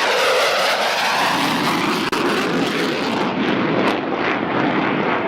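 F-14 Tomcat jet making a high-speed pass: a loud, steady jet roar with a sweeping, phasing swish as it goes by. The hiss drops away after about three seconds as the jet moves off.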